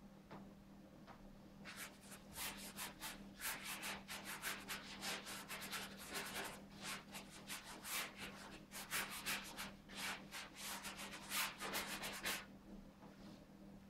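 Paintbrush scrubbing on a stretched canvas in quick, uneven back-and-forth strokes, starting about two seconds in and stopping near the end.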